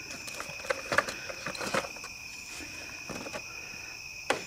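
Steady night chorus of crickets, two high even tones, with irregular small taps and knocks on top, the loudest about a second in and just before the end, from a wet catfish being handled on a wooden dock.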